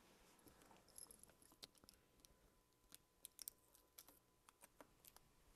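Near silence with faint, scattered small clicks and crackles from fingers picking at tape on a thin flat flex ribbon cable.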